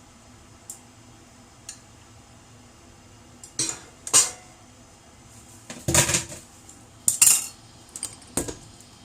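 Cookware and kitchen utensils clattering: two faint clicks, then from about three and a half seconds in a series of sharp metallic clinks and knocks in small clusters.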